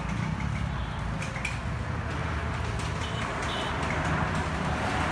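Roadside street ambience: a steady low rumble of traffic and engines, with a few short high chirps.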